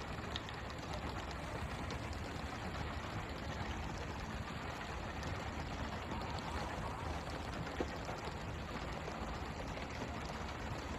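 Water spray from a pole-and-line tuna boat hissing and spattering onto the sea over the low hum of the boat's engine, with one sharp knock about eight seconds in.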